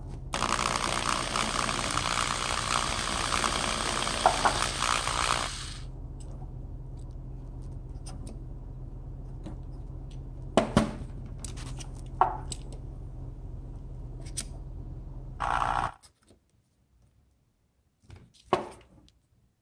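Power drill running for about five seconds, spinning a modified screw bit pressed hard against a diecast toy's axle end to set the wheel, then stopping. A low steady hum follows with a few sharp metal clicks, and a short burst of the drill near the end before the sound cuts off.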